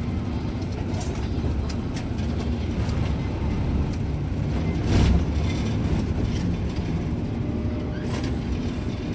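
Plasser tamping machine running: a steady low engine drone with scattered clicks and clanks, and one heavy thump about halfway through.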